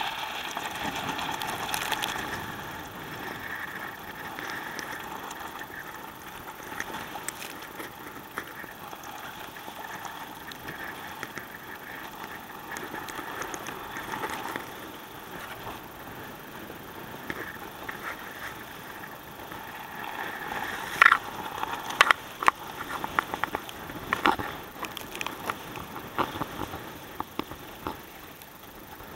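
Water rushing and splashing along the hull of a sailing kayak moving fast through rough, choppy water, with strong wind on the microphone. A run of sharp spray splashes comes about three quarters of the way through.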